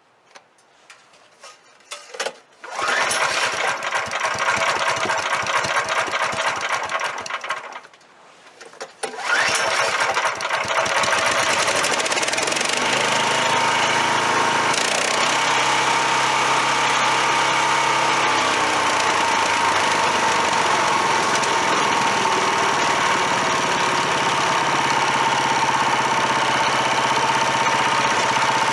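Small gas engine of a DR leaf and lawn vacuum being started after its hose plugged with wet leaves: it runs for about five seconds, drops away, then catches again about nine seconds in and runs steadily with a whine, restarted so the vacuum clears the clog.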